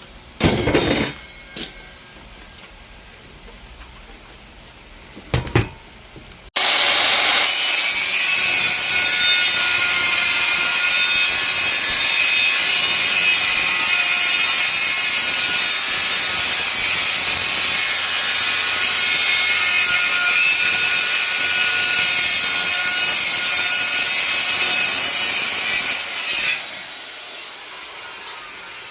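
A power saw cutting notches into a wooden stretcher board. A few light knocks come first. The saw then starts abruptly about six seconds in, runs loud and steady for about twenty seconds, and stops near the end.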